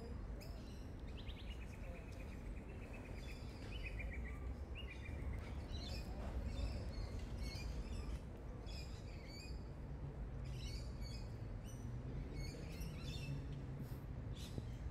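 Birds calling and chirping, with a rapid trill twice in the first few seconds, over a steady low background rumble.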